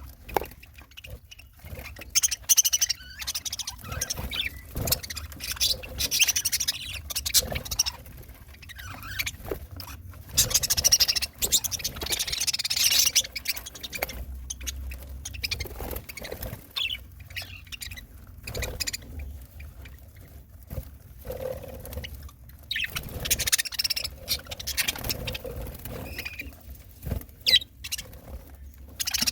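Pet budgerigars chirping and chattering in short, irregular bursts, mixed with many sharp clicks and taps.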